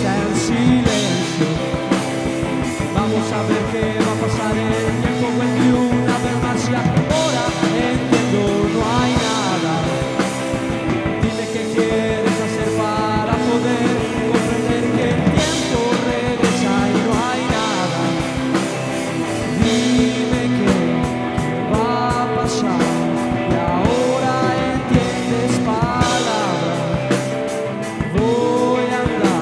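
Live rock band playing: two electric guitars and a drum kit, with a man singing lead over them.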